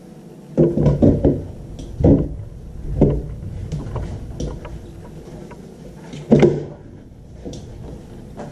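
Knocks and thumps as a pleated cartridge filter is pushed and turned into place on its metal base: a quick cluster about half a second to a second and a half in, single knocks near two and three seconds, and the loudest one a little after six seconds.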